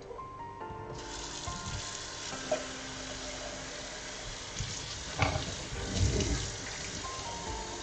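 Kitchen faucet turned on about a second in and running steadily, water splashing over a pot being rinsed in a stainless steel sink. A few knocks of the pot against the sink, the loudest about five seconds in.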